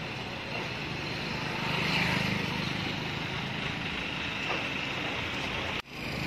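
Roadside street ambience: steady traffic noise that swells about two seconds in, then drops out for a moment near the end.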